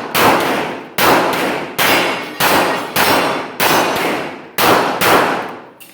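A 9mm competition pistol firing a string of about eight shots, spaced about half a second to a second apart, each shot trailing off in a long echo.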